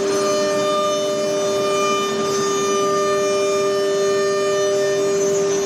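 The spindle of an automatic tool-change nesting CNC router running with a steady, unchanging whine while it carves grooves into an MDF door panel, with a hiss of cutting underneath.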